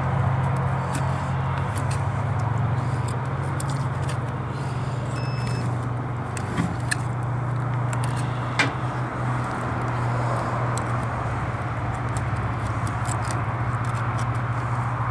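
A steady low hum runs underneath throughout. Over it come a few scrapes and sharp clicks as a boning knife cuts meat away from a snapping turtle's ribs and backbone. The sharpest click comes a little past halfway.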